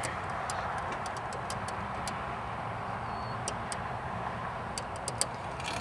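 Telephone keypad buttons clicking as they are pressed, a dozen or so irregular clicks with no keypad tones: the phone is dead. A steady background hum runs underneath.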